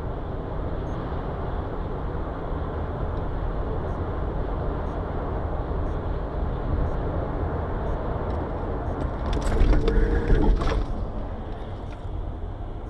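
Steady road and engine noise heard from inside a car driving at speed on a motorway. About ten seconds in there is a brief louder burst with a short pitched sound and some sharp clicks.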